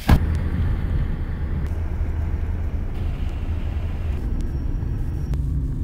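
Car cabin noise while driving: a steady low rumble of engine and tyres heard from inside the car, with a sharp click right at the start.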